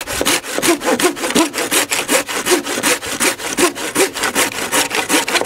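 A hand saw cutting through wood in quick, even back-and-forth strokes, with the blade giving a short squeal on many strokes.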